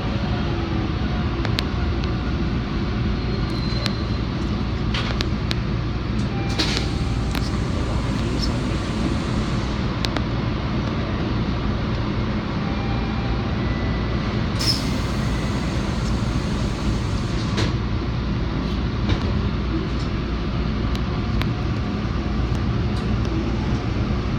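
Subway train rumbling steadily, heard from inside the lead car as it pulls out of the station into the tunnel, with scattered clicks and rattles. A brief hiss comes about halfway through.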